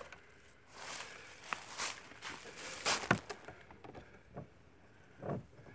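Irregular metal knocks and scrapes from a chainsaw bar being worked by hand in a bench vise, its seized nose sprocket being forced to turn. The loudest knock comes about three seconds in.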